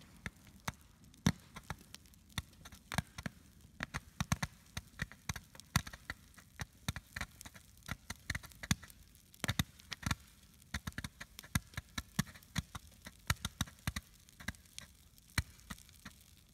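A firework going off, with a steady scatter of sharp pops and crackles at an uneven pace, several a second.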